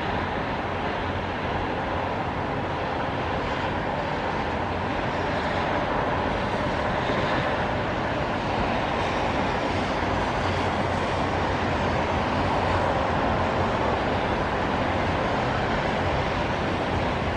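Highway traffic on rain-soaked pavement: car tyres on the wet road and engines blend into a steady wash of noise that swells a little around the middle.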